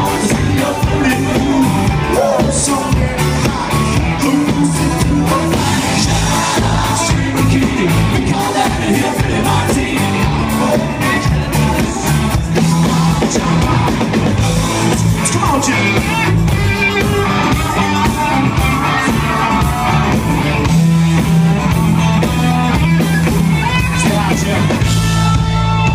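Live rock band playing loud: electric guitars, bass and drum kit, with a lead singer's vocals.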